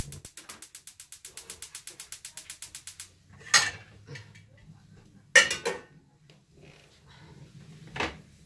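Gas stove igniter clicking rapidly, about ten clicks a second, until the burner lights about three seconds in. The lit burner then runs with a faint low rumble under a few sharp clatters of pots and kitchenware, the loudest about five seconds in.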